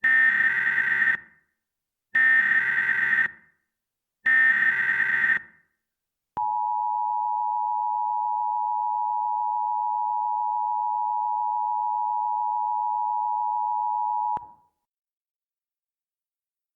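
Emergency Alert System tones opening a civil danger warning. First come three short bursts of buzzing data tones (the SAME header), about two seconds apart. Then the two-tone attention signal holds one steady chord for about eight seconds and cuts off sharply.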